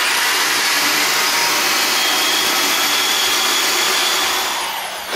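Electric drill boring a hole into a house wall, running at steady speed with a high whine, then spinning down near the end.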